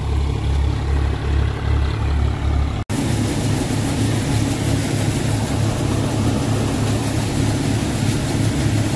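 Tractor-driven wheat thresher running under load: a loud, steady machine hum with a low engine beat pulsing two or three times a second. The sound breaks off briefly about three seconds in and carries on as a steadier hum.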